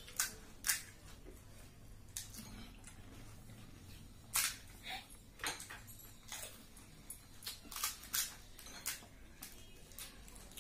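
Crisp golgappa (pani puri) shells being poked open with the fingers and crunched while eating: about a dozen short, sharp crackles at irregular intervals.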